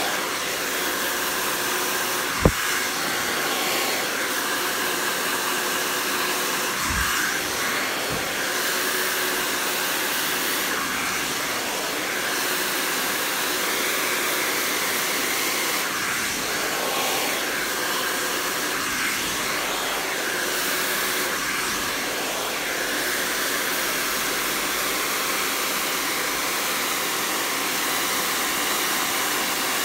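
Handheld hair dryer blowing steadily as hair is blow-dried, with a sharp click about two and a half seconds in and a couple of fainter knocks a few seconds later.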